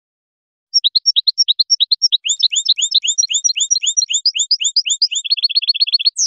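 European goldfinch (Carduelis carduelis) singing: a run of high, repeated chirping notes, several a second, that quickens into a fast trill near the end and closes with a falling note.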